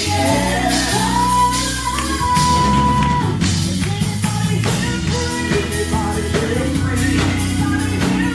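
Gospel music: singing over a backing band, with one voice holding a long high note about two seconds in.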